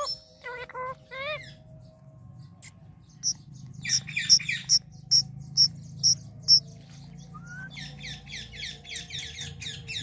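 Indian ringneck parakeet chirping: a few short rising calls, then a run of sharp chirps about two a second, then a fast run of falling chirps near the end.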